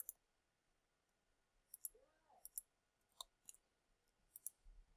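Computer mouse clicks: about five quick pairs of short, faint clicks spread over a few seconds, each pair a fraction of a second apart.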